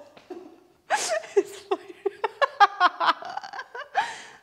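A woman laughing helplessly in a fit of giggles. After a short lull, a run of quick, breathy bursts of laughter starts about a second in.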